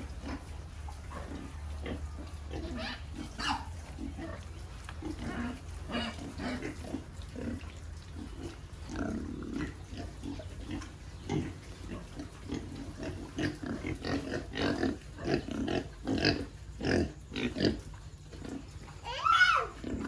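A group of two-month-old pigs grunting and snuffling in many short, irregular sounds, busier in the second half, with one louder squeal that rises and falls near the end.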